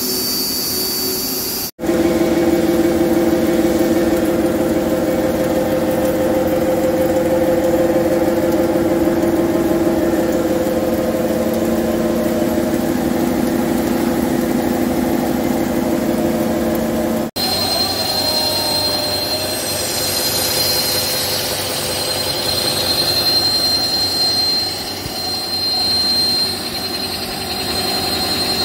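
Toshiba CNC machine's spindle running and milling metal. There is a steady hum of several tones, then after an abrupt cut a steady high-pitched whine over the machining noise.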